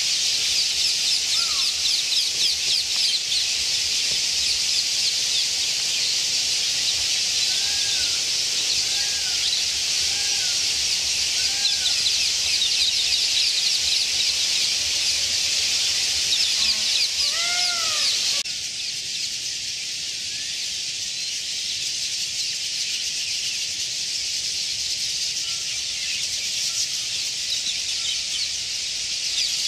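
A large flock of bulbuls chattering in palm fronds: a dense, high, continuous twitter of many overlapping quick notes. A few lower, arching calls stand out in the middle. The chatter turns somewhat quieter about two-thirds of the way through.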